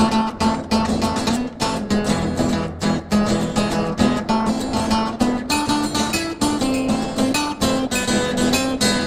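Background music: fast plucked and strummed acoustic guitar.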